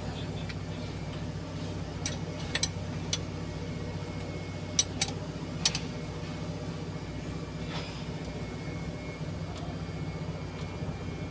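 Steady low hum of a heavy-machinery diesel engine running, with several sharp metallic clinks of tools against engine parts between about two and six seconds in.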